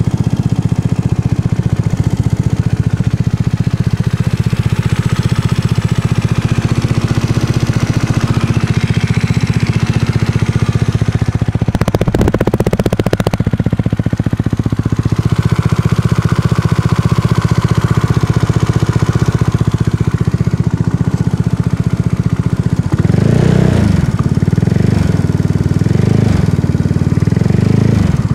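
Yamaha Zuma scooter engine fitted with a Tripple88 164cc big-bore kit, idling with a rapid ticking noise. A brief noise cuts across it about twelve seconds in, and in the last five seconds the throttle is blipped several times, the revs rising and falling.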